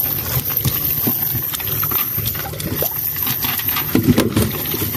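Freshly netted red tilapia and tilapia flapping and slapping against the wet wooden boat deck inside a cast net: a run of irregular knocks and wet slaps, heaviest about four seconds in.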